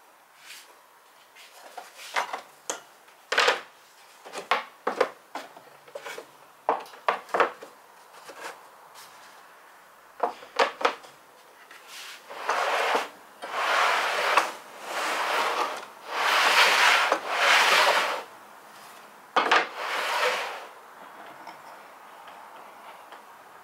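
Hand work on a plywood saw table: many sharp clicks and knocks of wooden and metal parts being handled, then about five scraping rubs of a second or more each, like a metal plate sliding over wood. No saw motor is running.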